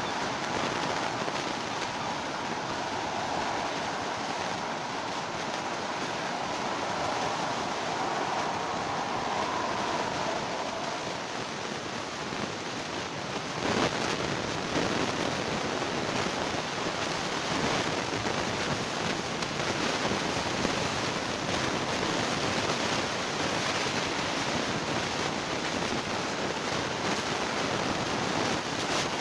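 Steady rushing noise with no clear birdsong, and a sharp knock about 14 seconds in, after which the noise is a little louder.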